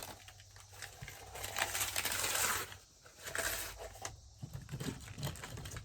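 Rustling and light clicking and tapping as items are handled on a tabletop, with the longest stretch of rustling in the middle.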